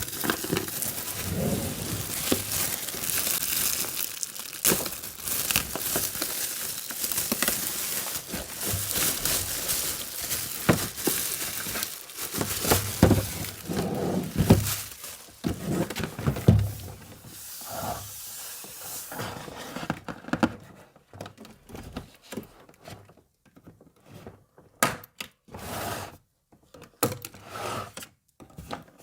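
Packaging of a miniature toy kitchen set crinkling and tearing as it is unboxed, a dense steady crackle for the first half, then giving way to scattered separate clicks and taps with short pauses between them.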